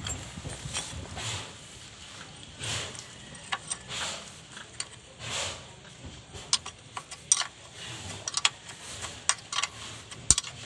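Sharp, irregular metal clicks and clinks of a hand wrench on the mounting bolt of a newly fitted clutch slave cylinder, coming thick in the second half. Before them, soft rustling handling noise.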